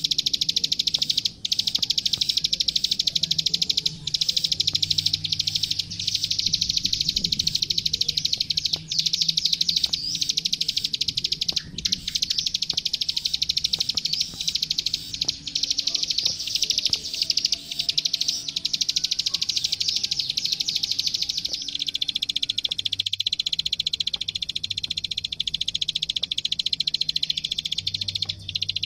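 Klik klik bird (ciblek sawah) singing a fast, continuous run of high clicking notes, the full-tilt gacor song used as masteran for training young birds.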